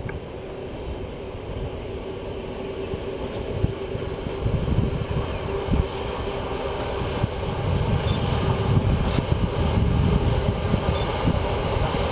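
Queensland Rail 2800 class diesel locomotive hauling a loaded ballast train: steady engine drone with a constant tone and a low rumble, growing louder as the train draws nearer.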